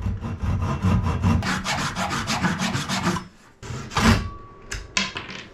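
Fine-toothed hand saw cutting a small piece of wooden trim with quick back-and-forth strokes for about three seconds, then stopping; a few separate knocks follow.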